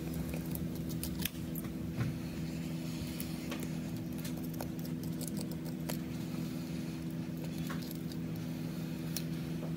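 Small metal repair tools clicking, tapping and scraping irregularly on a phone during a rear-glass replacement, over a steady low electrical hum from bench equipment.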